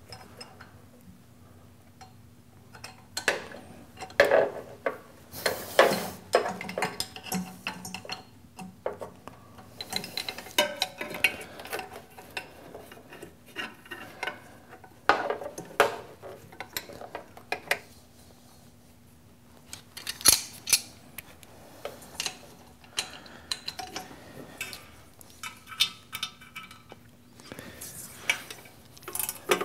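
Wrench clinking and knocking on the lathe's motor mounting nuts and studs: irregular metal-on-metal clicks and scrapes, bunched into spells with quiet pauses between.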